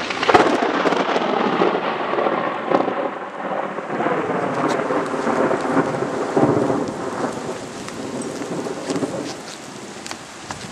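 Thunder: a sharp crack at the very start, then a long rolling rumble that dies away over the next several seconds.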